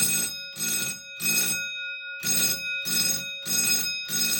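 Fire alarm bell sounding in code 4-4: short rings of about half a second in groups of four, a brief pause between the groups, the gong's ring hanging on between strokes.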